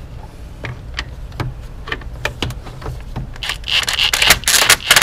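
A cordless drill drives a socket on an extension to tighten the battery hold-down bolt. A few scattered metal clicks come first. About three and a half seconds in, the drill starts a loud, fast rattle of rapid clicks as it runs the bolt down tight.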